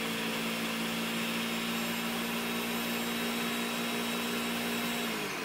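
Ninja Professional countertop blender running at a steady speed, blending oil, garlic and cilantro into a liquid sauce. Near the end the motor is switched off and its pitch starts to fall as it winds down.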